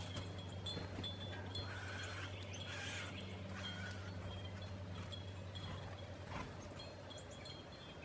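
Wind chime tinkling: short, high ringing notes recurring every half second to a second, over a steady low hum.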